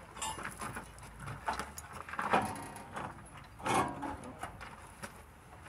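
Scattered clunks and scrapes of hands-on work around an engine hanging from a hoist chain, about four short knocks spread over a few seconds.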